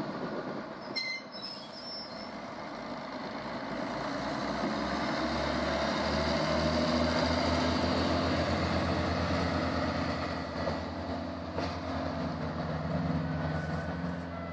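Diesel railcar set 'De Kameel' passing over a level crossing and pulling away. There is a brief high squeal about a second in. From about four seconds in, a steady diesel engine throb grows louder as the railcar accelerates.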